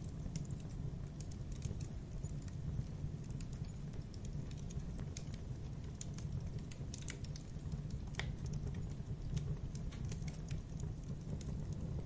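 Campfire crackling: irregular small pops and snaps over a steady low rumble, with a sharper snap about eight seconds in.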